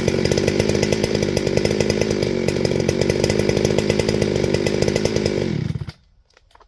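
Farmertec G395XP two-stroke chainsaw running steadily at speed, then dropping in pitch and dying off to a stop near the end.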